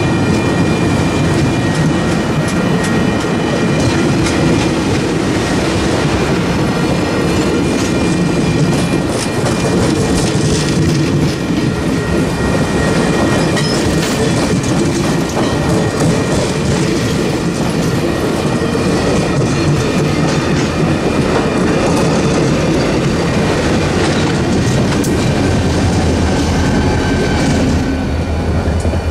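Passenger coaches of a Cuyahoga Valley Scenic Railroad train rolling past at close range, wheels clicking over the rail joints, with steady high-pitched tones running through it. The last car clears near the end and the sound eases.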